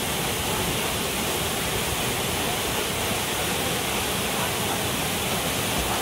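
Waterfall pouring into a rock plunge pool: a steady, unbroken rush of falling water.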